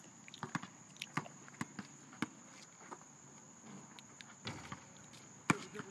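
Pickup basketball on an asphalt court at a distance: scattered sharp thuds of the ball bouncing and players' footsteps, the loudest about five and a half seconds in. A steady high insect drone runs underneath.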